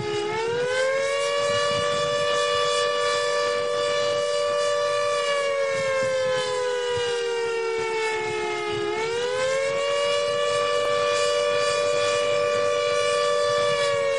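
Tornado warning siren wailing: two slightly different pitches sound together, rising quickly, holding, then falling slowly, with a second rise about nine seconds in.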